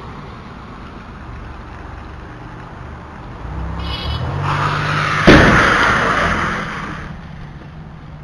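A car collision on a wet street: a sharp crash about five seconds in, after a few seconds of rising tyre-and-engine noise, then a noisy tail of about a second and a half. A steady hiss and low hum run underneath.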